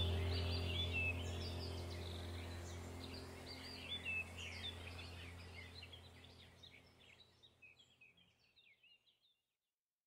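Small songbirds chirping and twittering over a low, steady hum, the whole soundscape fading out to silence about nine seconds in.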